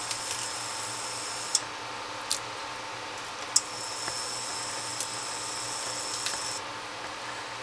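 Red gulaman jelly mixture simmering in a stainless steel pot, just come to the boil: a steady hiss with a handful of sharp ticks spread through.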